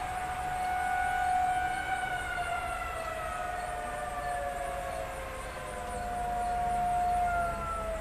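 Outdoor tornado warning siren sounding during a test: one steady wailing tone that swells louder about a second in and again near the end, its pitch sagging slightly after each swell.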